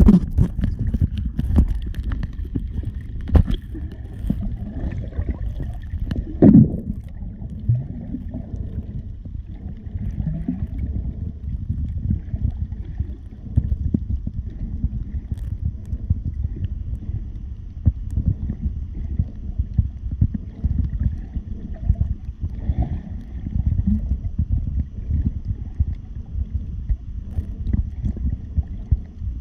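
Muffled underwater noise heard through a camera housing: a low, rumbling wash of moving water with scattered knocks and bumps, the loudest about six and a half seconds in.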